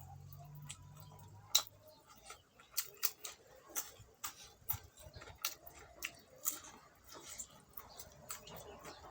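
Close-up mouth sounds of eating: chewing and lip-smacking, heard as an irregular string of sharp, wet clicks about one or two a second.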